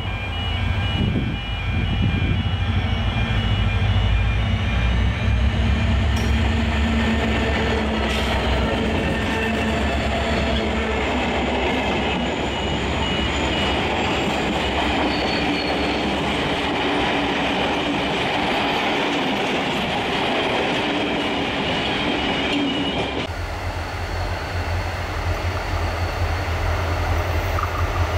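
C-class diesel-electric locomotives running past under power, then a line of heritage passenger carriages rolling by on the rails. About 23 seconds in, the sound cuts abruptly to the steady low drone of the locomotive engines from further off.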